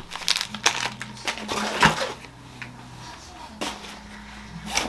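Handling noise: a plastic-wrapped snack bar crinkling and a fabric backpack rustling as it is packed, with scattered clicks and knocks, the loudest crinkle about two seconds in.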